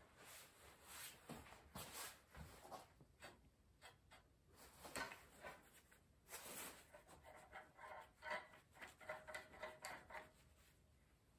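Faint handling noise of a steel steering rack being set on and slid across steel mounting plates: scattered light clicks and knocks, then a stretch of rattling scrapes in the second half.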